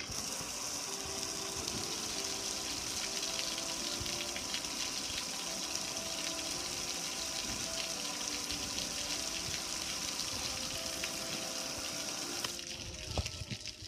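Water spraying with a steady hiss as soapy foam is sprayed over a metal gas grill, cutting off about a second before the end. Faint background music with a simple melody plays underneath.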